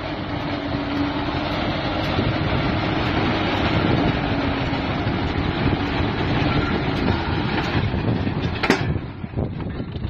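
Small tractor engine running with a mini round baler working behind it: a dense, steady mechanical noise, with one sharp knock near the end.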